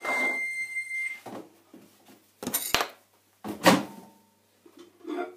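A microwave oven beeping once, one steady high beep of a little over a second marking the end of its heating cycle. It is followed by three knocks and clunks, the loudest about halfway in.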